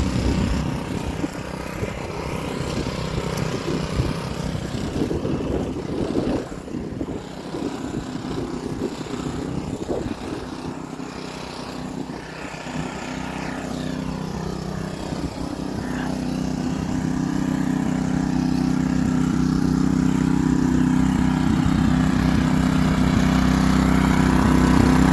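Small engine of a water pump running steadily while it drains a pond, its hum growing louder over the last ten seconds or so. Footsteps rustle over dry leaves and pine straw in the first half.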